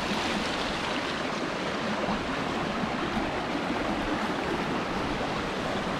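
Dam overflow water running steadily down a rock-lined spillway.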